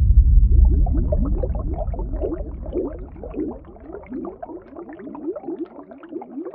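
Object plunging into water, heard as from under the surface: a deep rush at the start that fades over a few seconds, overlaid with a stream of bubbles gurgling up in many quick rising blips that thin out toward the end.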